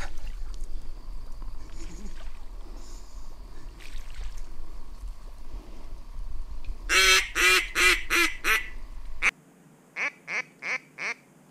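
Duck quacking in two runs: five loud quacks in quick, even succession about seven seconds in, over a low wind rumble, then after a sudden cut four fainter quacks near the end.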